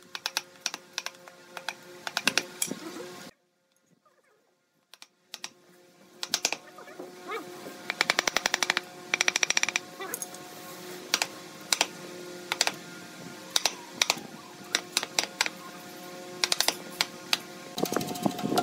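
Wooden mallet striking a chisel handle again and again, chopping the chisel into a block of softwood: sharp knocks, some in quick runs, broken by a short silent gap a few seconds in. Background music plays underneath.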